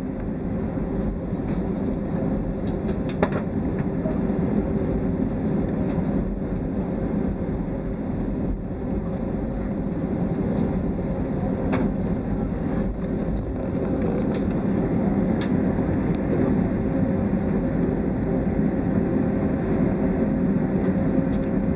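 Steady cabin rumble of an airliner taxiing at idle power, with a faint steady hum and a few light clicks.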